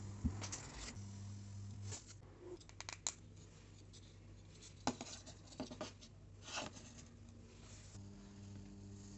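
A hot wire foam cutter hums low and steady, cuts out about two seconds in, and comes back near the end. In between are short clicks and scrapes as a foam block and a wooden template are handled and fitted together, the sharpest about halfway through.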